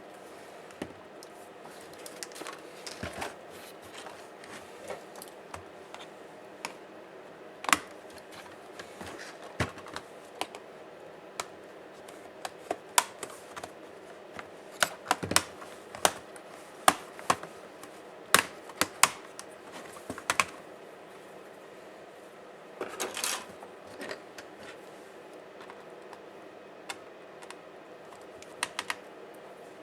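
Irregular small clicks and taps of plastic and metal laptop parts being handled and worked loose with tools during disassembly of a Dell Latitude 5480, with a short scraping rattle partway through, over a faint steady hum.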